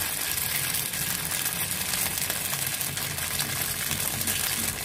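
Tofu and dried-shrimp fritter frying in hot oil in a wok: a steady sizzle.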